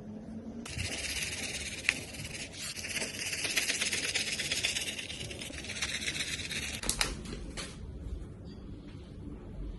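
Slime being squeezed and worked by hand, a dense fine crackling with a couple of sharper clicks, dying down about three-quarters of the way through.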